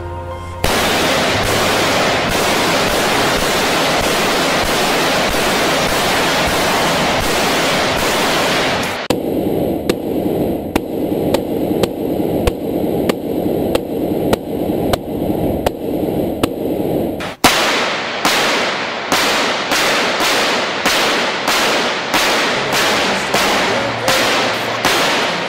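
Gunfire from an AK-pattern rifle striking an armored SUV's bullet-resistant windshield. First a dense stretch of rapid fire, then shots heard muffled from inside the car's cabin, then single shots about two a second, each with a short ring.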